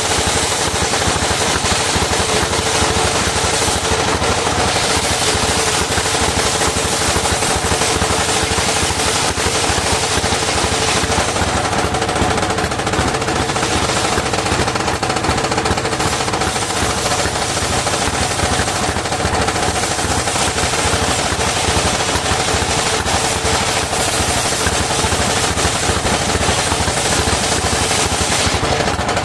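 Engine powering a circular sawmill, running steadily with a fast, even stream of firing knocks and a constant hum from the spinning drive and blade.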